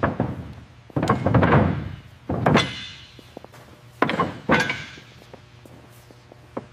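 A series of heavy thuds and knocks, about five, spaced a second or so apart. Some are followed by a short rushing noise, like work sounds in a maintenance workshop.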